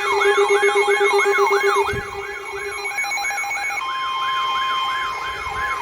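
Electronic siren yelping, its pitch sweeping up quickly about three and a half times a second. A steady high tone joins it about four seconds in.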